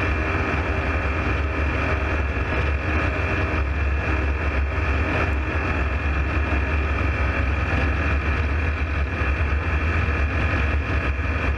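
Ultralight aircraft's engine and propeller running steadily at cruise in flight, heard from inside the cockpit as a loud, even drone.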